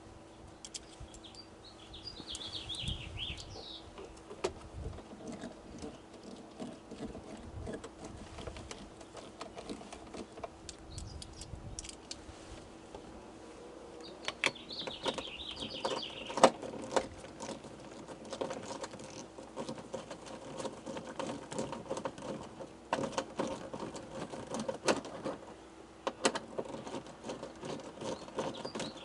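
Scattered clicks, taps and light knocks of small parts and tools being handled while door trim parts are refitted, busier in the second half. A bird chirps a few times in the background.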